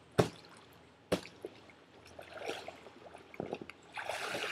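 Two sharp slaps about a second apart on a wet inflatable banana floatie, followed by water dripping and trickling, and a brief splash near the end.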